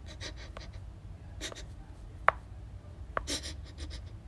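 Fur and paws scratching and rubbing right against a phone's microphone, with soft sniff-like puffs. Two sharp clicks come in, the louder about two seconds in.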